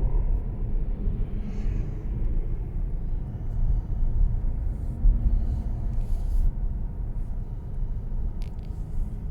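Mercedes E-Class All-Terrain on the move: a steady low road rumble, with a few brief rattles from the car, the sounds being recorded as an unwanted rattle.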